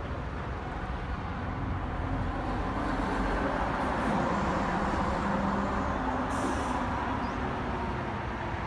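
Road traffic: a motor vehicle passing close, its engine and tyre noise swelling to a peak about halfway through and then easing, with a brief hiss about two-thirds through.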